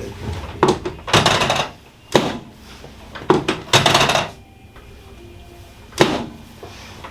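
Chiropractic drop table: a series of sharp thunks as the drop sections give way under the chiropractor's thrusts, several followed by a brief rattling knock.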